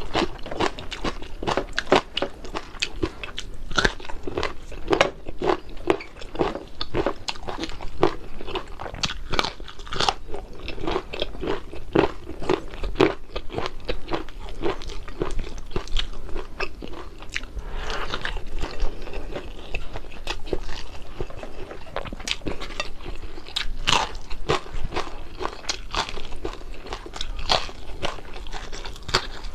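Close-miked chewing and biting of crispy fried fish, a dense, irregular run of loud crunches, easing briefly a little past halfway.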